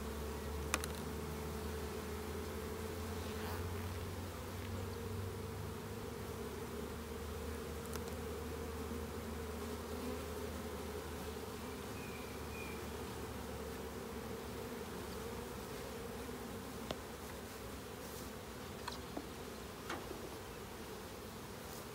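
Swarm of honeybees buzzing around a hive box in a steady, dense hum, with a few faint clicks.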